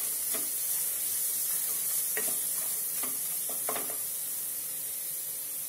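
Onion-and-spice masala sizzling in oil in a kadhai on a low flame while a wooden spatula stirs it, with a few short scrapes of the spatula against the pan over a steady hiss.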